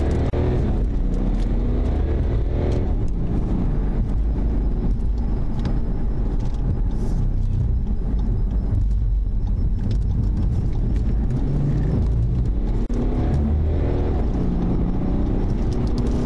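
Patrol car's engine and road noise heard from inside the cabin during a high-speed pursuit. The engine note rises and falls as the car accelerates and eases off, over a constant low rumble of tyres and wind.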